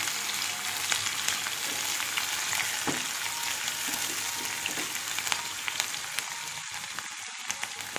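Chopped onions and curry leaves sizzling in hot oil in a nonstick kadai as they are stirred with a spatula: a steady hiss with scattered small pops, growing slightly quieter toward the end.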